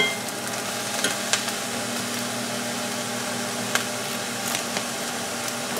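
Chopped spinach sizzling softly in a cast iron skillet over a steady low hum. A sharp clink of the metal spoon on the pan opens it, and a few light clicks follow.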